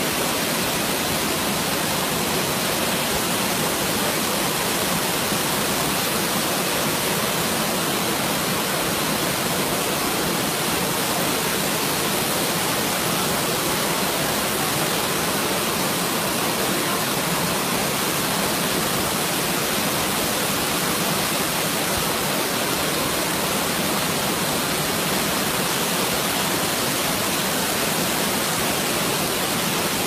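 Waterfall cascading over boulders: a steady, unbroken rush of falling and churning water.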